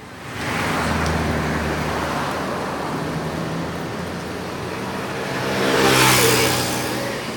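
A road vehicle passing close by: engine and tyre noise rise about half a second in and are loudest around six seconds in, then ease off.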